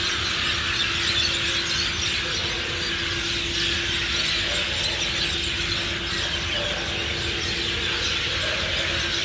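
Dense chorus of a large flock of birds chirping all at once: a continuous din of many overlapping high chirps, like a crowded fair. A faint steady low hum runs underneath.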